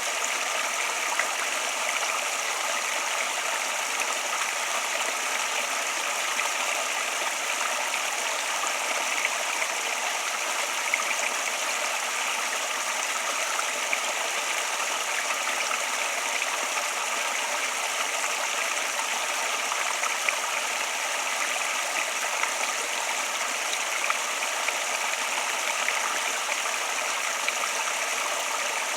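Water flowing steadily: an even rush with small splashes here and there.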